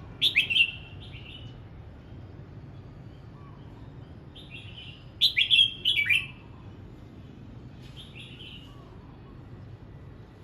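Red-whiskered bulbul singing short, quick warbled phrases: a loud one right at the start, a longer loud one around five seconds in, and softer ones after that.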